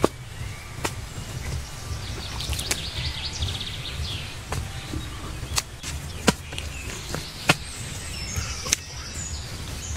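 Bare hands digging and scooping loose dry soil out of a hole, with sharp knocks and clatters every second or so as clods are thrown. Birds chirp in the background over a low rumble.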